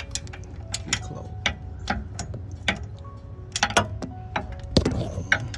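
Hand ratchet clicking in short, uneven strokes on a 10 mm socket, working the 10 mm bolts loose on the back side of the hub, with a sharper clack of metal about five seconds in.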